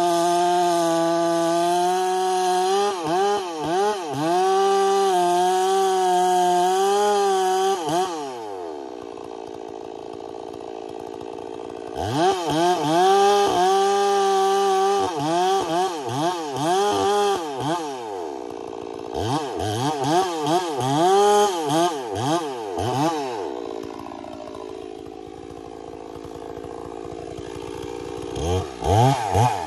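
Two-stroke chainsaw making a felling cut in a large tree trunk. It runs at full throttle in the cut for about eight seconds, drops to idle, then revs back up into the wood in repeated swells. It idles again for a few seconds near the end before revving up once more.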